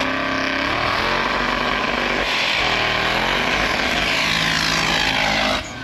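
Off-road racing rigs running at full throttle side by side in a snow drag race, a loud steady engine noise whose pitch dips and climbs again about two seconds in. The noise drops off suddenly near the end.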